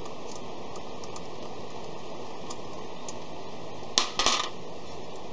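Small metallic ticks of hand tools on carburetor parts over a steady background hiss, then a short, sharp clatter about four seconds in as a screwdriver knocks against metal.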